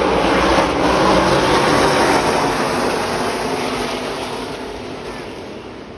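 A pack of V8 stock-car race trucks running past at speed, the combined engine noise fading steadily as they pull away.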